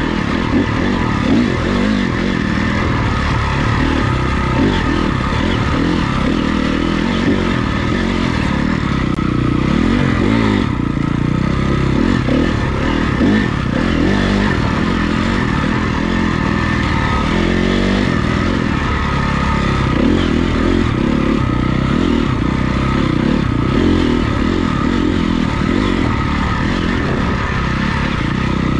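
Honda CRF250R dirt bike's single-cylinder four-stroke engine running under way, its revs rising and falling again and again with the throttle.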